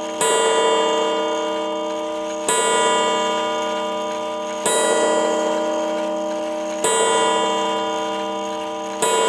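Seth Thomas 89C clock movement striking the hour on its gong: five strokes, each a little over two seconds apart, ringing on and fading slowly until the next. It is part of nine strokes counting 9 o'clock.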